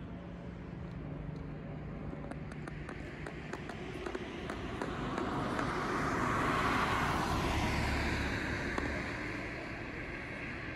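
A car passing on the road: tyre and engine noise swell to a peak about seven seconds in, then fade away.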